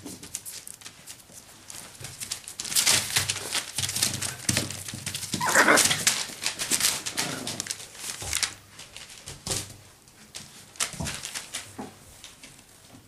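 Parson Russell Terrier puppies playing, with scuffling and rustling throughout and one short puppy cry about halfway through.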